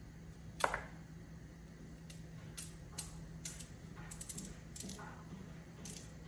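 A carrot being peeled by hand: short, crisp scraping strokes at an irregular pace, after a sharp knock about a second in.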